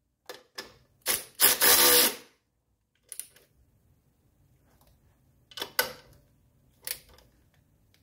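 A ratchet wrench snugging down the nuts on an oil filter housing lid. It makes a few scattered clicks and one longer run of ratcheting about a second and a half in.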